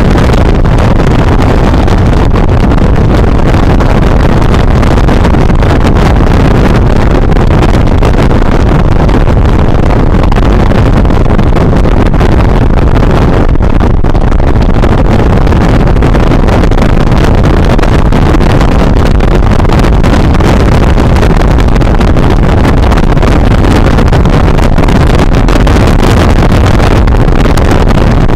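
Loud, steady wind rush buffeting a helmet-mounted microphone on a motorcycle at road speed, with engine and road noise blended into it.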